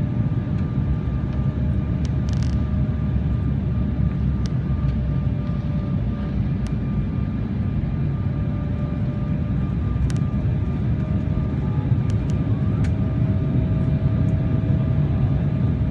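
Steady low rumble of a jet airliner heard from inside the passenger cabin: engine and airflow noise, with a faint steady whine over it.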